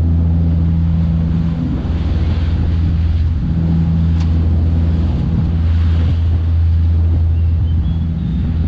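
Charter fishing boat's engine running steadily under way, a loud, even low drone.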